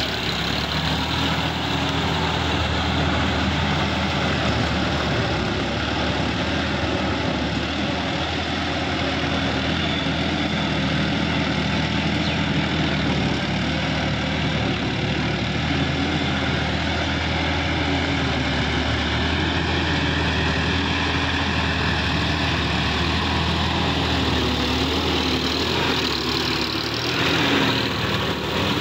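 Sonalika DI-50 RX tractor's diesel engine running steadily under load while it drives a rotary tiller through wet paddy mud, briefly louder near the end.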